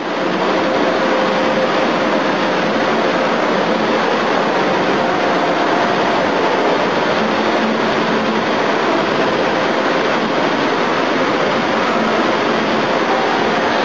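Steady, even rushing background noise with faint steady hum tones, unchanging throughout.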